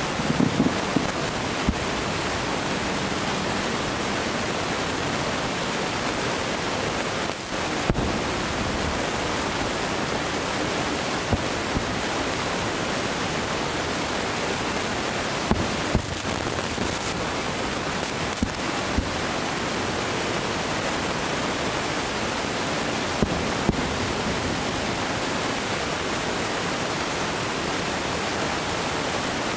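Distant fireworks display: scattered faint booms and sharp pops from bursting shells over a steady, loud hiss.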